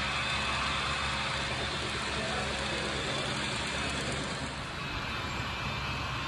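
HO scale model freight cars rolling along the track, a steady rolling rumble of small wheels on rail, over a low steady hum.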